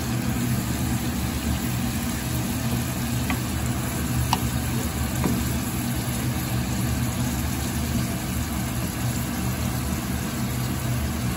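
Mushrooms and vegetables sizzling in oil in a stainless steel pan as they are stirred with a wooden spatula, with a few faint clicks near the middle. Under the sizzle runs a steady low mechanical hum, the loudest part of the sound.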